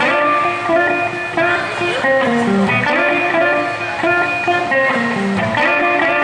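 Electric blues guitar solo on a sunburst hollow-body electric guitar, single picked notes changing several times a second, with lower bass notes mixed in.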